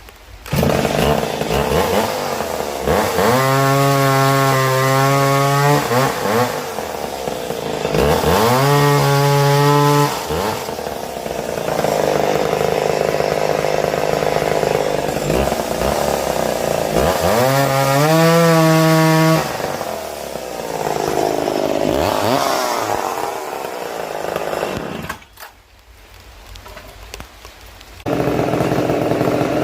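McCulloch 7-10 Automatic two-stroke chainsaw bucking small wood. It revs up repeatedly to a steady high pitch, and between the revs it runs at a lower, wavering pitch under load in the cut. It drops away for a few seconds near the end, then comes back loud.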